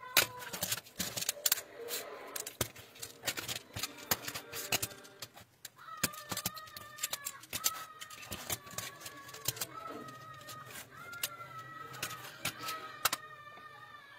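Plastic magnetic building tiles clicking and clacking as they are handled and snapped together, in many sharp clicks. From about six seconds in, a repeated high-pitched tone sounds in short segments underneath.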